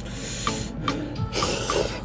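Ramen noodles slurped from a bowl: a softer slurp at the start and a louder one a little past the middle. Background music with a plucked beat about twice a second plays throughout.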